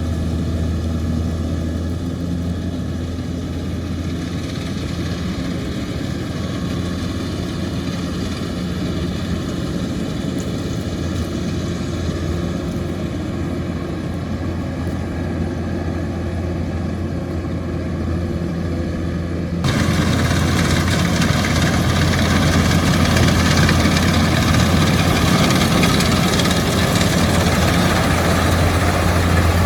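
Kubota DC-105X combine harvester's diesel engine running steadily with a deep hum. About two-thirds of the way in, the sound turns abruptly louder and brighter.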